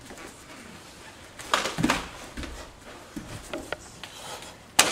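Sharp slaps and thuds of kenpo strikes and a takedown performed on a padded mat. A few hits come in the first half, and the loudest sharp impact comes near the end.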